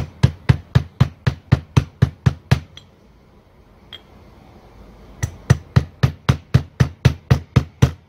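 Mallet tapping a socket used as a drift into the bore of a demolition hammer's gear housing, driving the new oil seal into place. The strikes come steadily at about four a second in two runs, with a pause of about two seconds in the middle.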